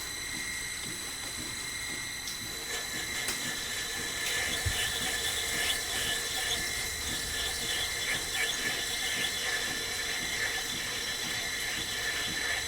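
Lathe running with a steady high whine while the tool of a ball-turning attachment cuts the spinning workpiece. From about three seconds in, irregular scraping and chattering squeal come from the cut.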